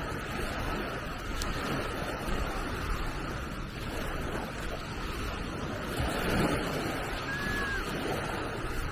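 Small Mediterranean waves washing onto a sandy beach, with wind buffeting the microphone.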